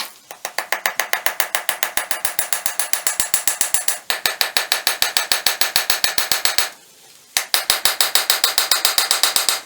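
A small hammer tapping rapidly and evenly on steel, about seven sharp strikes a second, peening over the end of a sword tang; it stops briefly and then starts again for a second run.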